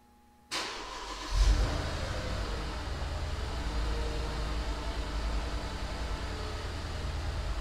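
Cold start of a 2012 Mercedes GL450's 4.7-litre V8, heard at the exhaust. A brief starter crank begins about half a second in. The engine catches with a loud flare of revs about a second later, then settles into a steady fast idle.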